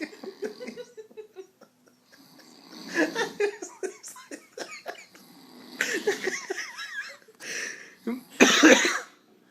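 A sleeping man snoring in loud, irregular snorts and wheezing breaths, the loudest snort near the end.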